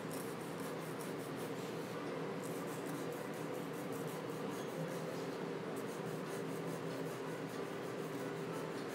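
A solvent-wet paintbrush stroked back and forth over coloured-pencil shading on paper: soft, steady rubbing over a faint low hum.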